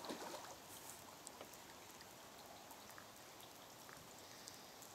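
Rain falling on a river, a faint, steady patter with scattered drop ticks. Right at the start a short splash as a hooked brown trout thrashes at the surface.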